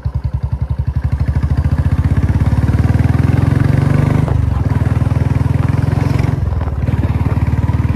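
Royal Enfield Bullet single-cylinder motorcycle engine running under way, its steady beat rising in pitch as it accelerates, dropping suddenly about four seconds in, then falling off briefly near the end as the throttle is eased.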